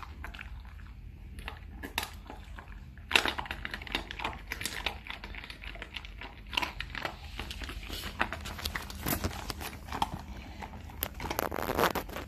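Labradoodle eating dry kibble mixed with meat from its bowl: quick, irregular crunching and crackling chews, loudest about three seconds in and again near the end.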